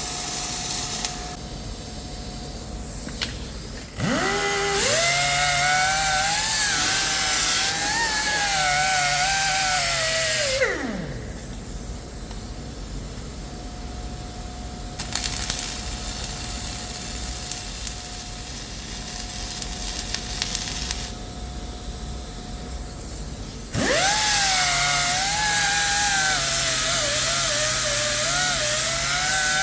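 An electric power tool spinning up, running with its pitch wavering under load, and winding down; it starts up again near the end.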